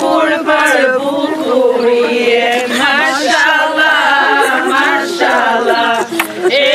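Several voices singing unaccompanied, a slow song with long, wavering held notes.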